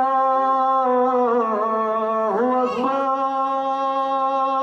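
A man chanting the azan, the Islamic call to prayer, drawing out one long note. About halfway through, the note wavers and dips briefly, then he takes it up again and holds it.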